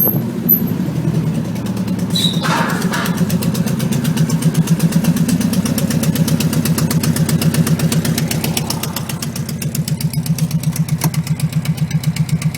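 Air-cooled flat-four engine of a 1969 VW Beetle 1500 running at a steady speed with a loud, pulsing exhaust, like a Harley. The sound comes from a broken exhaust: one pipe's weld has come off at the muffler, leaving a gap at the heat exchanger.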